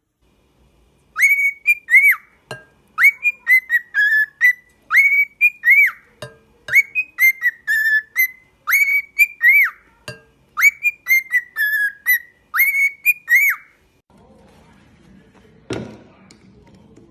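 Pet parrot whistling the same short tune over and over, about seven times, each phrase a quick run of clear rising-and-falling notes. A single knock follows near the end.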